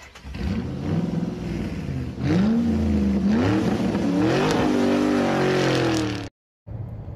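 Car engine revving, its pitch rising and falling several times, then cutting off abruptly about six seconds in. After a moment of silence a quieter, steady low engine hum begins.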